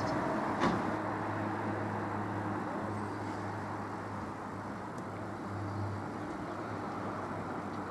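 Distant, steady low rumble with a faint hum from a Class 313 electric multiple unit approaching along the line.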